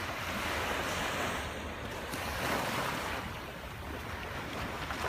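Small waves breaking and washing up on a sandy beach, swelling and fading every second or two, with wind rumbling on the microphone.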